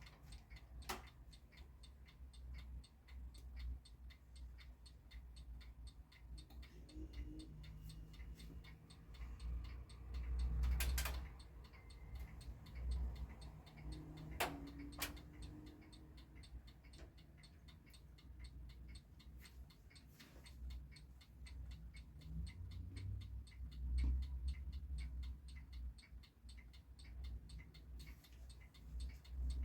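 A West German mechanical alarm clock ticking in a quick, even rhythm, with two louder sharp clicks about halfway through.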